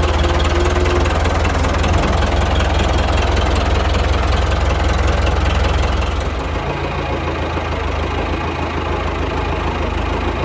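An old farm vehicle's engine running with a steady, loud low rumble and rattle, heard from in or beside the cab; the sound shifts to a lighter tone about six and a half seconds in.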